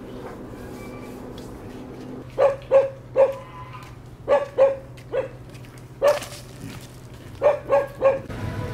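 A dog barking, about ten short barks in groups of two or three, starting a couple of seconds in, over a steady low hum.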